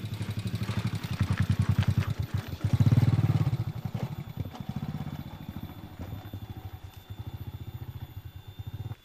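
Small motorcycle engine running with a fast, even putter. It is loudest about three seconds in, then quieter.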